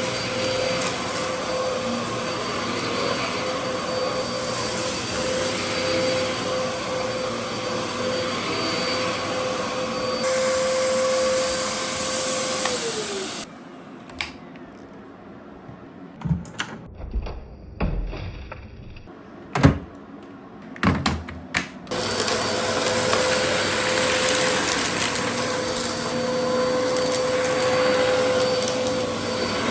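Dyson DC07 upright vacuum cleaner running steadily with a whine and rushing airflow. About halfway through its pitch dips and the sound drops away, and a few sharp clicks and knocks follow. The vacuum then runs again at full power for the last several seconds.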